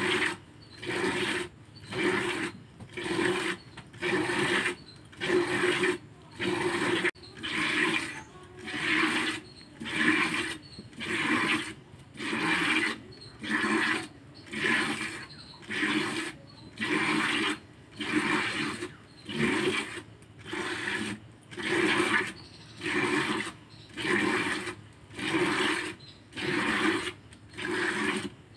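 Hand milking: jets of milk squirting from the teats into a plastic bucket already holding milk, a rhythmic hissing splash about once a second, steady throughout.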